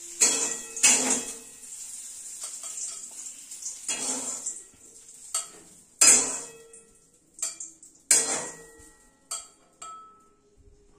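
A spatula knocking and scraping against a stainless-steel kadai as mango pieces are stirred: irregular clanks every second or so, some leaving a short metallic ring.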